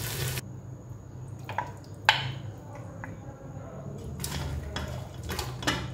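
Frying meat sizzling in a pot cuts off within the first half second, then a few scattered clinks and scrapes of a serving spoon against the metal pot and plate, the sharpest about two seconds in and a cluster near the end.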